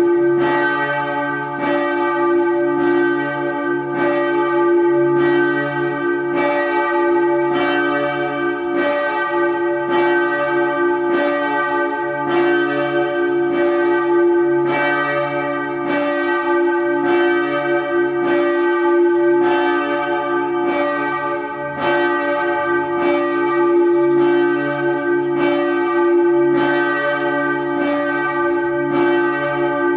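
Church bells pealing: bells struck over and over at a steady pace, more than once a second, their tones ringing on and overlapping.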